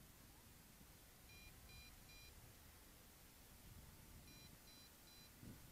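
Faint groups of three short, high beeps, repeating about every three seconds: the MJX Bugs 5W radio transmitter's low-battery alarm for the drone.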